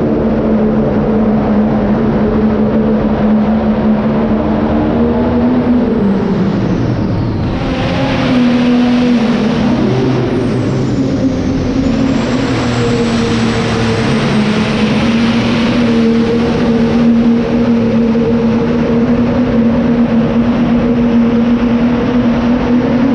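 Pulling tractor's engine running hard at high, steady revs during a tractor pull, with its pitch dipping about six seconds in and then climbing back. A faint high whistle glides down and up over it.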